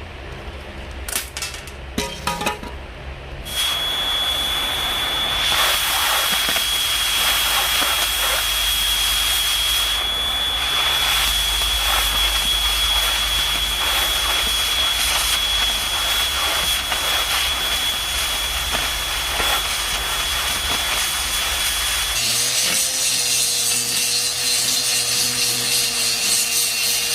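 A handheld power tool cutting or grinding steel: a few knocks, then from about 3.5 s a loud, steady grinding noise with a high whine. Near 22 s the high whine stops and a lower steady tone with a hum takes over.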